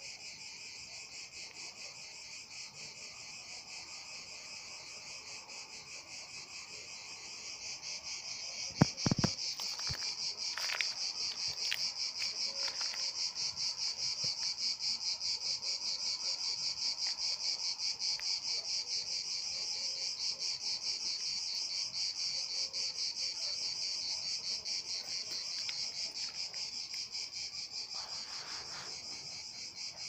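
Cicada singing: a continuous, high, fast-pulsing buzz that grows louder about eight seconds in and eases a little near the end. A few sharp knocks about nine seconds in.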